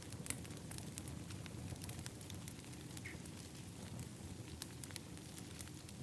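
Wood fire burning in an outdoor fire pit, with a steady low rumble and frequent sharp, irregular crackles and pops.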